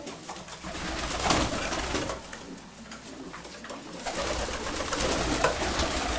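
Flock of fancy pigeons cooing in a small loft, with wing flutters and scuffling among the birds.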